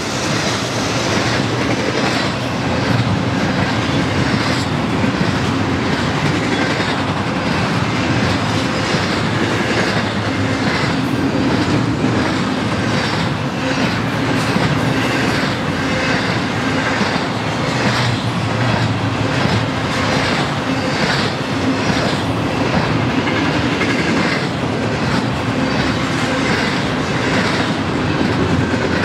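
Loaded double-stack intermodal well cars of a freight train rolling steadily past: a loud, continuous rumble of steel wheels on rail with a regular clickety-clack of wheel clicks.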